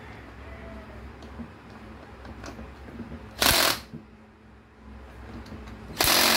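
Cordless drill-driver run in two short bursts, each about half a second and a little over two seconds apart, tightening the wood screws that hold a bipod mount to a wooden stock.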